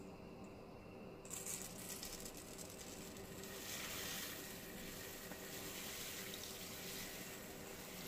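Pre-washed rice poured from a bowl into simmering broth in a skillet: a hissing, pattering rush of grains hitting the liquid that starts about a second in and is loudest around four seconds.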